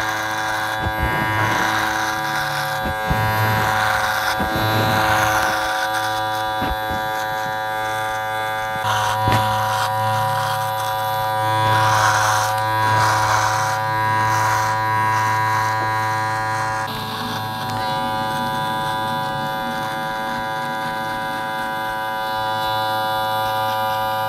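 JRL cordless hair clipper running with a steady electric buzz as it trims beard stubble down close, growing louder and rougher every few seconds as the blade passes through the hair along the jaw and cheek.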